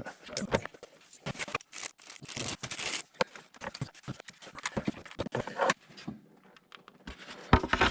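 Irregular clicks, knocks and light rustling of a new Denso ignition coil and engine parts being handled and fitted by hand, with short pauses between the strokes.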